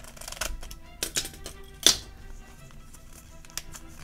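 Plastic toy packaging handled and worked open by fingers: a series of sharp plastic clicks and crackles, the loudest a little under two seconds in, over faint background music.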